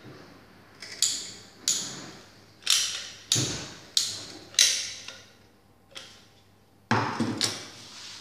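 Hand-held caulking gun being squeezed repeatedly to push adhesive out of a cartridge, giving about six sharp clicks over the first five seconds. A short clatter of knocks about seven seconds in.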